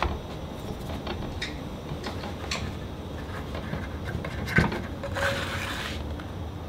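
Metal spatula working in cast iron skillets: a few light clicks and knocks against the pans, the loudest about four and a half seconds in, then a short scrape as it slides under a grilled cheese sandwich near the end.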